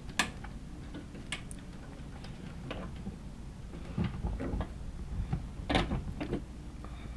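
Scattered clicks and light knocks of hands working on a dishwasher's water inlet valve and its fittings. The sharpest click comes just after the start, and a cluster of knocks comes around four to six seconds in.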